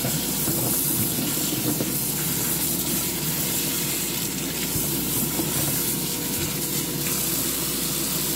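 Cold tap water running in a steady stream onto asparagus spears in a plastic colander in a stainless steel sink, as the spears are rinsed by hand.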